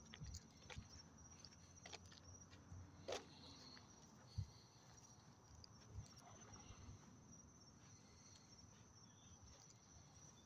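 Near silence: a faint, steady high-pitched insect trill, with a few soft scattered clicks and thumps.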